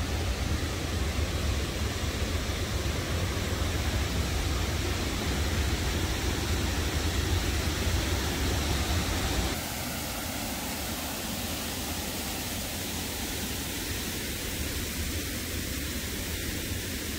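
Steady outdoor rushing noise with a heavy low rumble; about nine and a half seconds in the rumble drops away abruptly, leaving a quieter, even hiss.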